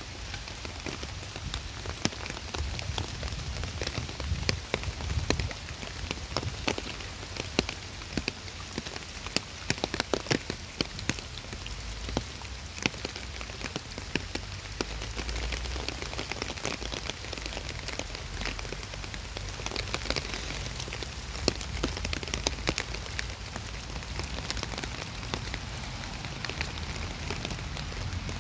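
Steady rain falling, with many sharp drop ticks close by and a low rumble underneath.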